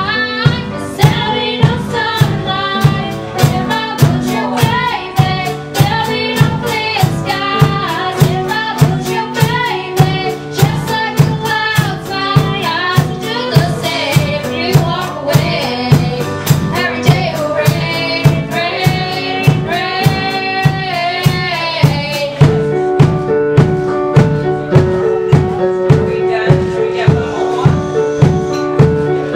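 Live band music: a young singer's voice over keyboard chords and a drum kit keeping a steady beat. About two-thirds of the way through, the singing stops and the keyboard and drums play on.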